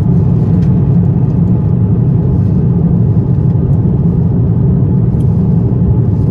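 Cabin noise inside an Airbus A350-1000 airliner: a steady, loud low rumble of the engines and airflow that holds even throughout.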